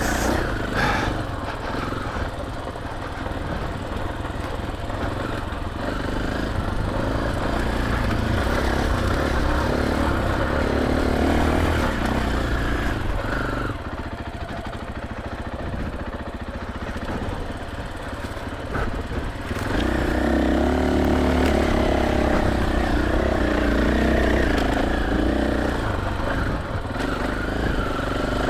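KTM 500 EXC-F dirt bike's single-cylinder four-stroke engine running under changing throttle while riding. It eases off for several seconds in the middle, then pulls harder and louder again from about two-thirds of the way in.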